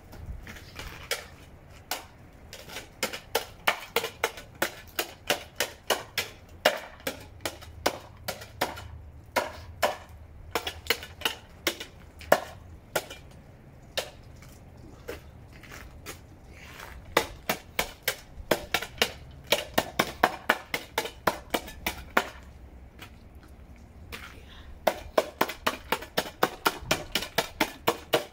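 Snow shovel blade chopping at a glaze of ice on pavement: a quick series of sharp knocks, about two or three a second, in three runs with short pauses between.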